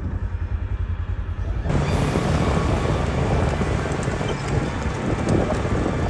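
Wind buffeting the microphone: a low rumble that becomes a louder, fuller rushing noise about two seconds in.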